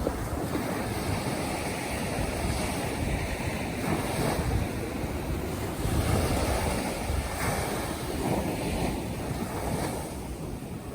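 Winter sea waves breaking and washing on the shore, surging louder a few times, with wind rumbling on the microphone.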